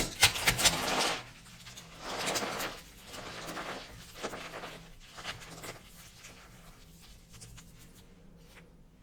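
Dry, starch-coated soap crunching and crackling as it is crushed, in several bursts. The loudest burst comes in the first second, and smaller crackles thin out toward the end.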